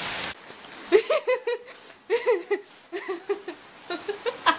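A woman giggling in four short bursts of laughter. A heavy rain hiss cuts off abruptly just after the start.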